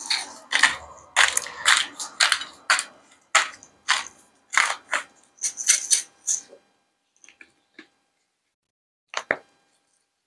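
Hand-held spice grinder being twisted: a run of gritty crunching grinds, two or three a second, stopping about two-thirds of the way through. A few faint clicks follow, and one sharper click near the end.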